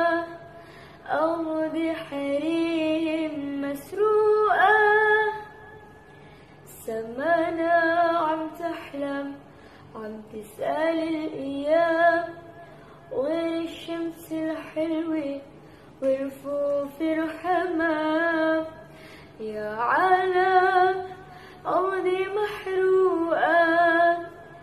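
A woman singing an Arabic sholawat (devotional song) solo, in ornamented phrases of a second or two with gliding, wavering pitch and short breaths between them.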